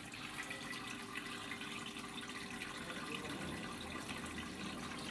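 Washing machine filling: a steady rush of water jetting into and through the detergent dispenser drawer, flowing through the soap compartment into the drum.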